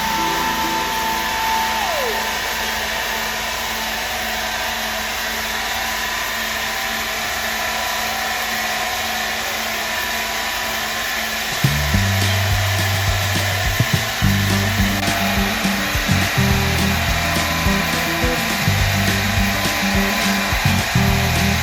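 A steady machine whirr under background music, whose low bass notes come in much louder about halfway through.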